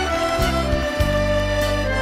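Live Bulgarian folk music from a stage band: held melody notes over a moving bass line.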